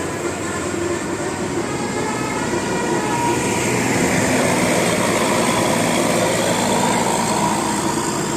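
Bus basuri horn, a set of roof-mounted air-horn trumpets, sounding held multi-tone notes over steady vehicle and street noise.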